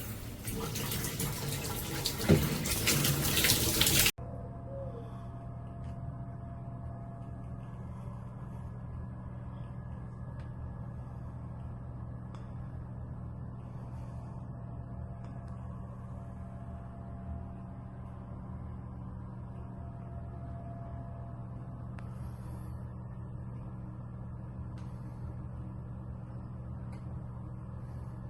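Water spraying hard from a filtered rain shower head, cut off abruptly about four seconds in. After the cut, a quieter steady low hum holds for the rest of the time.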